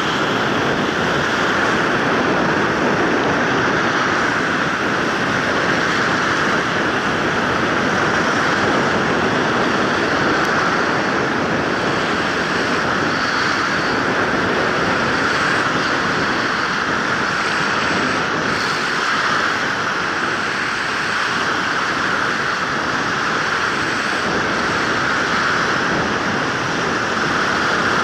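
Ocean surf washing steadily onto the shore, a constant rush of noise.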